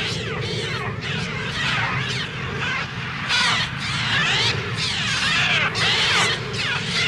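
A large flock of gulls screeching, many harsh cries overlapping and growing louder from about three seconds in, over a low steady rumble. The gull cries are electronically made, on a Mixtur-Trautonium.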